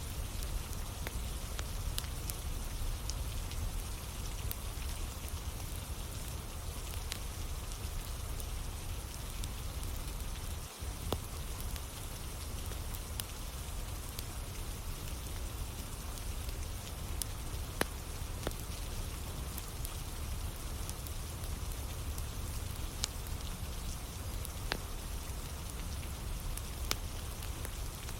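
Steady rain falling, with the scattered crackles and pops of a wood fire burning in it.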